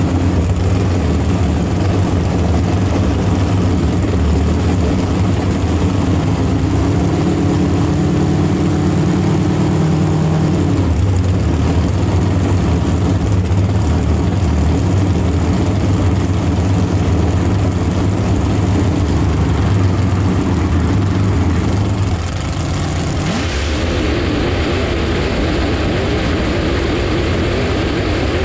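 A jet drag boat's 632 cubic-inch big-block Chevy V8 running loudly, its pitch climbing for a few seconds and then dropping back about ten seconds in. The sound changes abruptly a little past twenty seconds.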